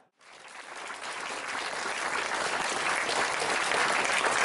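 Audience applauding, starting a moment in after a short gap and growing steadily louder.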